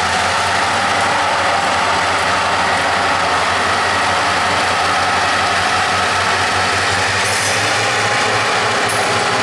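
Canadian Pacific EMD four-axle diesel road switcher's engine working under power as the locomotive moves off past the camera, a steady heavy drone mixed with the rattle of the running gear.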